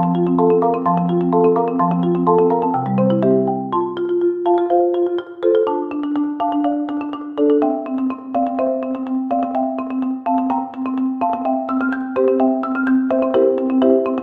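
Background music: a light, bouncy melody played on marimba or xylophone over held bass notes.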